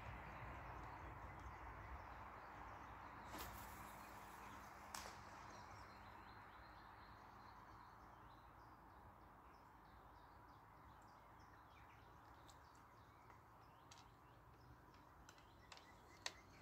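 Near silence of open countryside, with faint bird chirps and a few small clicks, the sharpest one near the end.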